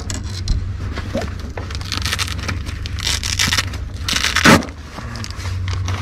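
Hands rummaging in a tackle backpack: plastic lure bags crinkling and fabric rustling in irregular bursts, the loudest about four and a half seconds in, over a steady low hum.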